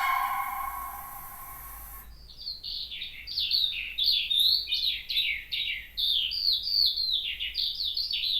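A songbird singing a fast, continuous run of clear whistled notes, each sliding downward in pitch. It starts about two seconds in, as music fades out.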